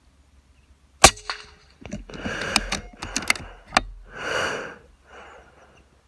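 A single sharp crack from a pre-charged pneumatic air rifle in 5.5 mm (.22) being fired, about a second in. It is followed by roughly three seconds of rustling and flapping with several sharp clicks, then a fainter rustle.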